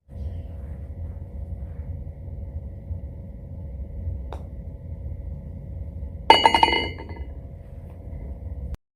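Golf ball dropping into the hole and clattering in the cup: one sharp, loud knock about six seconds in, followed by a brief ringing rattle. A steady low rumble of background ambience runs underneath, with a faint tick about four seconds in.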